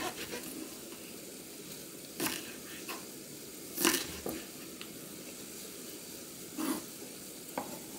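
Kitchen knife slicing green onions on a wooden cutting board: about six unhurried, unevenly spaced strokes, each a short knock on the board.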